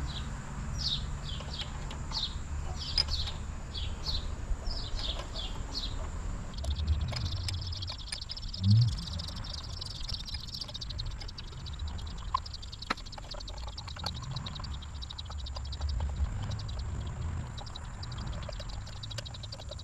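A bird singing: short high chirps that sweep downward, about two a second, for roughly six seconds, then a buzzy high trill for a few seconds, over a steady low rumble.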